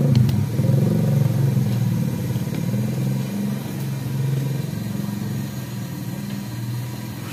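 Motorcycle engine running at a steady low speed, a low hum that slowly fades away.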